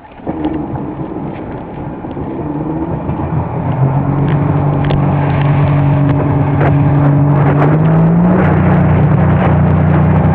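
Kawasaki STX-R jet ski pulling away: the engine builds and grows louder over the first few seconds, then runs steadily and steps up in pitch about 8 seconds in, over the rush of water and wind.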